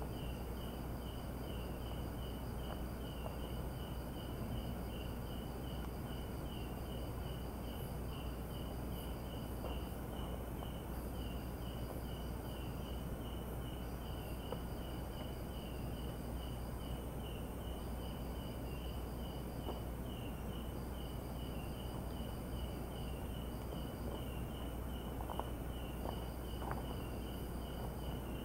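Night chorus of crickets and other insects: a steady pulsing chirp about two or three times a second, with a higher trill that starts and stops in bouts of a few seconds.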